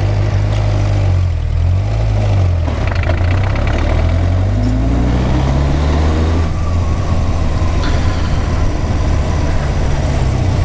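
Yamaha XJ600S motorcycle's air-cooled inline-four engine pulling away from a stop: the engine note climbs over a few seconds as the bike accelerates, then holds steady while cruising.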